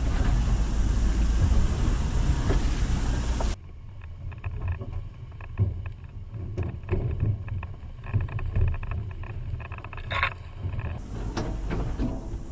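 Mitsubishi L300 Delica van crawling over a rough 4WD track, its engine running low and slow under wind noise on the microphone. About three and a half seconds in the sound cuts to a quieter engine rumble with occasional knocks, and there is a sharp click near the end.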